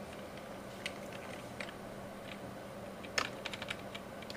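Typing on a computer keyboard: a couple of single keystrokes, then a quick run of keystrokes about three seconds in.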